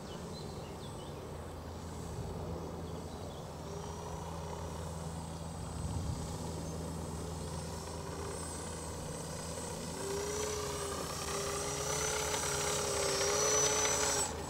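Small motor and propeller of a Magnus-effect RC plane in flight, a thin wavering whine that grows louder toward the end as the plane comes in close.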